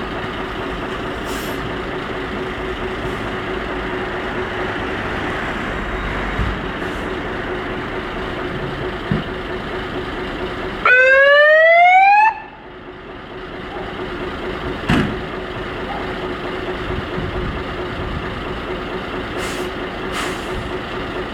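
Jelcz 004 fire tanker's diesel engine idling steadily. About eleven seconds in, a short, loud burst of siren rises in pitch and cuts off after about a second and a half.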